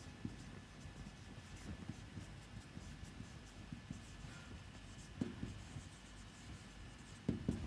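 Faint scratching and light ticks of a pen writing, with short pauses between strokes.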